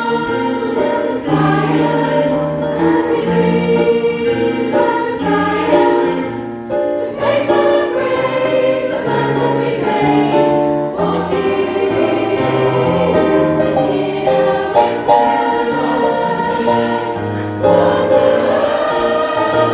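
Choir singing a Christmas song about sleigh bells.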